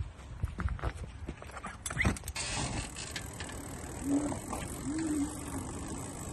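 Clicks and knocks from a bicycle and its dog trailer, then the steady rolling noise of the bike and trailer under way from about two seconds in. Two short low hums come about four and five seconds in.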